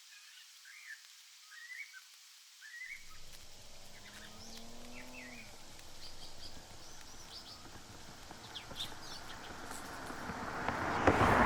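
Birds chirping and calling in the morning, with many short repeated chirps. About four seconds in comes a lower drawn-out call, and near the end a rush of noise swells up and peaks.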